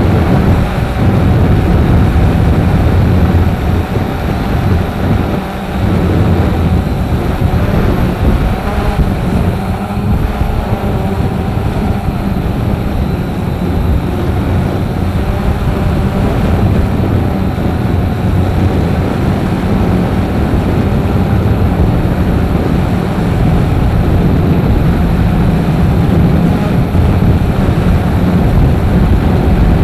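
Strong gale-force wind blowing and buffeting the microphone: a loud, steady, low rumble that goes on without a break.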